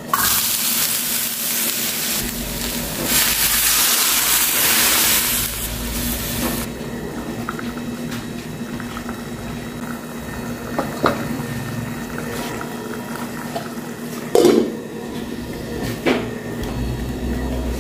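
Diced eggplant tipped into a small, old frying pan with a little oil, hissing loudly for about the first six seconds, then sizzling more quietly as liquid is poured over it. Two short knocks near the end.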